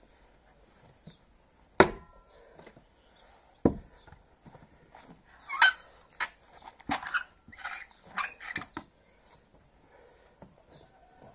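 Wood splitting at a chopping block: two sharp wooden knocks about two seconds apart, then a quicker run of knocks and clatter as axe and log pieces are handled on the block.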